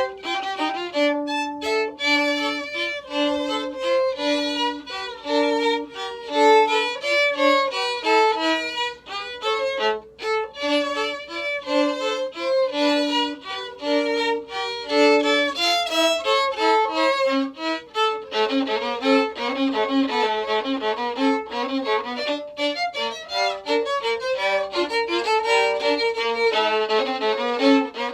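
A violin playing a melody, many of its notes short and separate, turning into a fuller, busier passage about eighteen seconds in.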